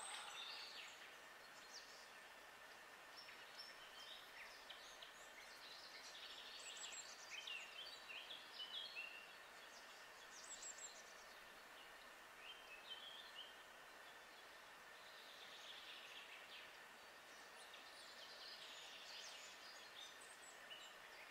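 Several small songbirds singing faintly on and off in a woodland, short high chirps and warbled phrases overlapping, busier in a couple of stretches, over a soft steady hiss of background.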